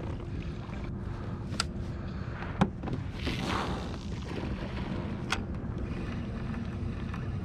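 Pedal kayak moving through calm water: a steady low rush of water and wind, with three sharp clicks and a brief hiss about three seconds in.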